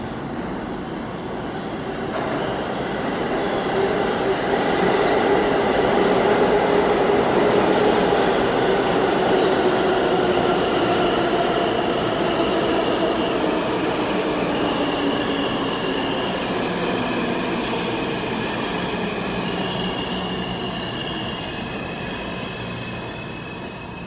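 New York City subway train passing on a far track through an underground station. Its rumble builds over the first few seconds, peaks, then fades slowly, with high steel-wheel squeals in the later part.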